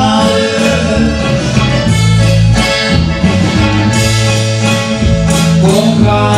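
Music playing for a father-daughter dance: held instrumental notes over a changing bass line.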